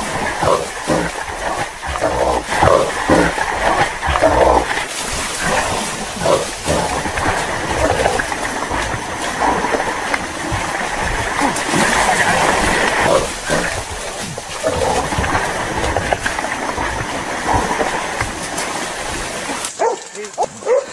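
Hunting dogs barking and growling as they fight a caught wild boar, over a constant noisy background of the struggle. The sound changes abruptly near the end.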